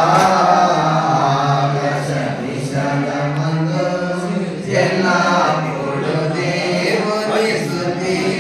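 A group of voices singing together, over a steady low held note.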